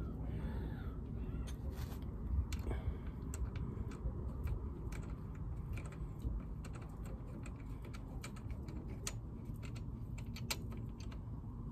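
Light, irregular metallic clicks and taps as a Benelli TRK 502's rear brake caliper is handled and its mounting bolts are threaded in by hand. A steady low background rumble runs underneath.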